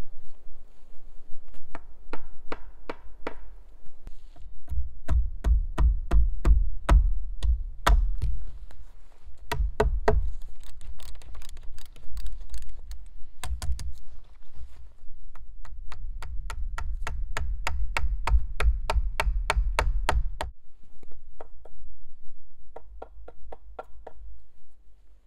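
Wooden poles being drilled by hand with a Lewis-type auger bit: a run of sharp clicks and knocks, about two or three a second, with stretches of low bumping from the poles being handled.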